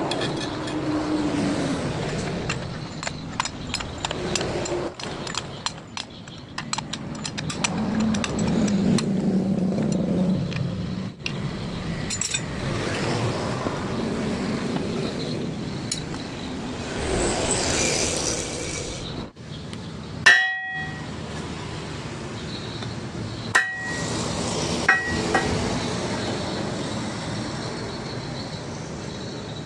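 Metal tools and parts clinking and knocking while a truck differential is being taken apart, over a steady background noise. About two-thirds of the way through comes one sharp ringing metal clang, followed a few seconds later by two lighter ringing clinks.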